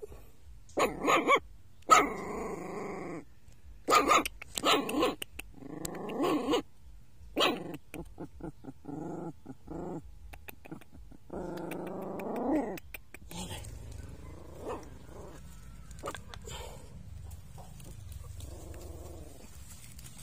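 Puppies crying out from their den: a string of short pitched cries and a few longer ones, loud at first, then fading to fainter calls for the last third.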